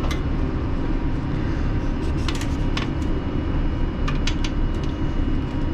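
Metal bracket and its plastic retaining clips being worked by hand, giving about half a dozen sharp clicks and knocks. Under them runs a steady low machinery rumble.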